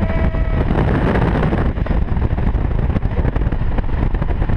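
Wind buffeting and road noise from a car driving fast with a window open, a steady, heavy rumble. A brief high tone sounds at the very start.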